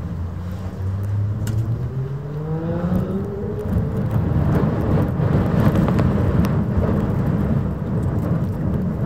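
A motor engine speeding up, its pitch climbing over the first three seconds, then a loud, steady rumble that keeps building.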